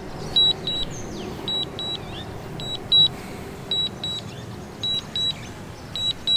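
Drone remote controller giving short double beeps about once a second, its alert while the drone is on return-to-home after losing signal. A steady background hiss runs underneath.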